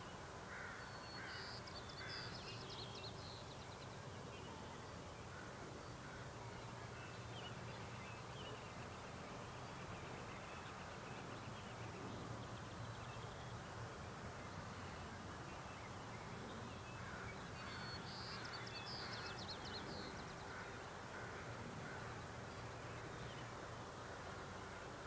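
Faint outdoor dawn ambience: a steady low hum, with birds calling in two short bursts of chirps and calls, one near the start and another about two-thirds of the way through.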